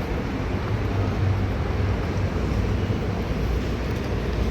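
Steady low rumble and road noise of a vehicle in motion.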